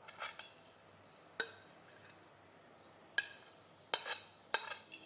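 Light clinks against a microwave-safe bowl as whole spices are added, several separate strikes with a short ring, spaced unevenly.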